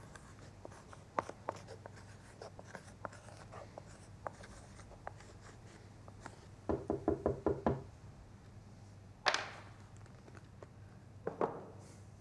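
Small clicks and scratches of hand work on a shoe at a cobbler's bench. A quick run of about seven knocks comes a little past halfway, then one sharp, louder knock, and two more knocks near the end.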